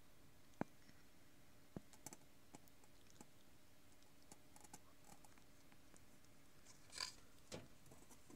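Near silence, broken by a few faint sharp clicks in the first few seconds and a short rustle about seven seconds in: handling noise from a phone camera held close over a beaker.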